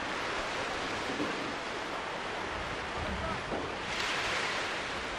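Sea surf washing on the shore, a steady rushing noise that swells about four seconds in.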